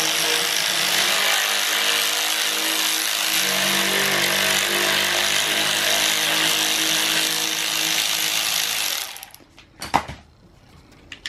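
Cordless power driver spinning a T25 Torx screw out of a plastic crankcase breather block. It runs steadily, its note changes about three and a half seconds in, and it stops abruptly about nine seconds in. A single sharp click follows about a second later.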